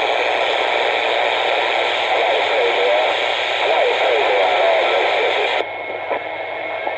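CB radio receiver playing a loud, hissing received signal with faint warbling traces of garbled transmission. The signal cuts off sharply about five and a half seconds in, leaving quieter static with a faint steady tone.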